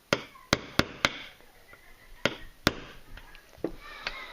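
Hammer tapping a pin punch to drive the pin of a Badger Ordnance charging handle latch into an AR-15 charging handle. Four sharp metallic taps come in the first second, then two more around two seconds in.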